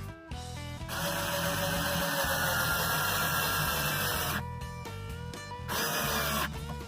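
Power drill running for about three and a half seconds, its motor pitch sagging slightly under load as it drives screws through the lid to fasten the handle, then a shorter run near the end. Background music plays throughout.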